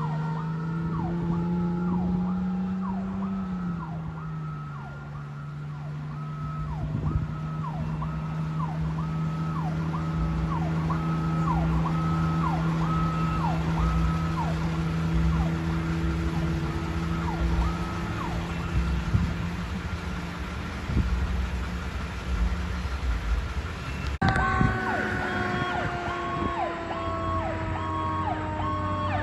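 Federal Signal PowerCall electronic siren sounding a repeating pattern that jumps up and drops back about once a second, over a lower steady tone. About 24 seconds in it cuts abruptly to another siren with a steadier, slowly falling pitch.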